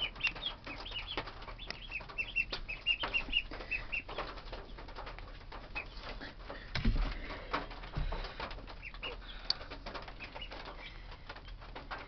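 Ducklings peeping, a quick run of short high calls that is busiest in the first few seconds and thins out later, among scattered clicks and rustles. A dull thump comes about seven seconds in.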